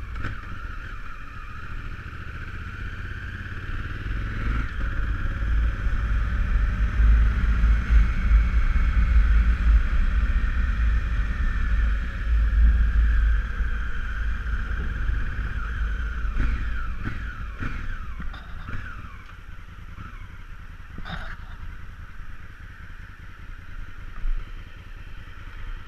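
Honda Africa Twin CRF1000L's parallel-twin engine running under way. It grows louder for several seconds, then eases off as the bike slows almost to a stop, with a sharp click about 21 seconds in.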